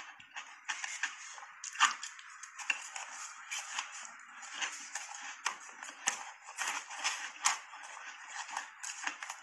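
Close-up chewing and crunching of a mouthful of soft shaved ice coated in matcha powder, with a metal spoon clicking against the bowl. An irregular run of crisp crunches and clicks, a few of them sharper and louder than the rest.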